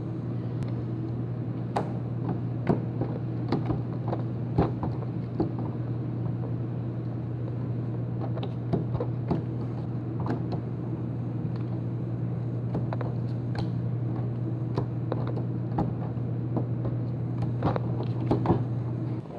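Playing cards being dealt and slapped down on a hard tabletop, short sharp taps coming irregularly every second or so, over a steady low hum.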